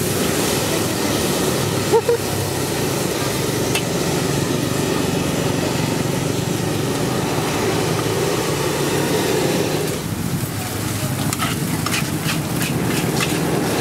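Nasi goreng (fried rice) sizzling in a large wok over a gas flame while it is stirred and tossed with a metal spatula. A steady frying hiss runs throughout, and the spatula clinks and scrapes against the wok several times near the end.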